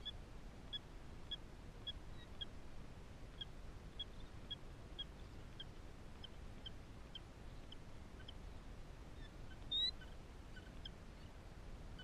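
Newly hatched killdeer chicks peeping: short, high, thin peeps repeated evenly about twice a second, with one louder rising call near the end.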